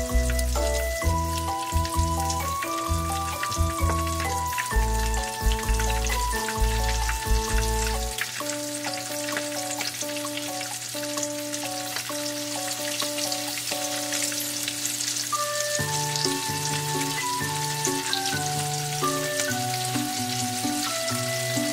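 Shrimp sizzling as they fry in hot oil, a steady crackling hiss. Background music with changing notes plays over it, with a heavy bass part that drops out about eight seconds in.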